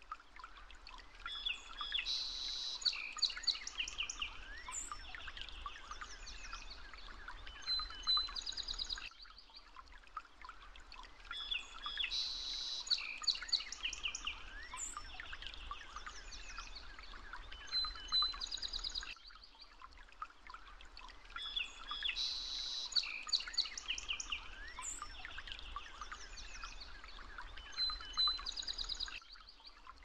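Recording of birds chirping and trilling over a faint hiss, the same stretch of about ten seconds looping three times.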